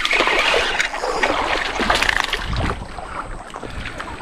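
Hooked peacock bass thrashing and splashing at the water's surface as it is reeled in. The splashing dies down about halfway through as the fish is lifted out of the water.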